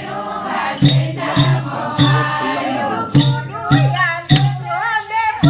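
Women singing a Gujarati devotional bhajan over a steady drum beat, about one beat every 0.6 s, with a short break in the beat in the middle. In the second half a single woman's voice leads with wavering, sliding notes.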